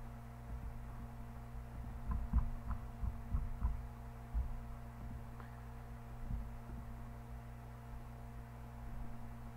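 Steady low electrical hum in the recording, with a cluster of low thuds and a few faint ticks about two to four seconds in.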